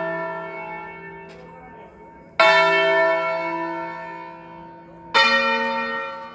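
Church tower bells ringing: a bell's ring fading, then two more strikes about two and a half seconds apart, each ringing out loudly and dying away slowly.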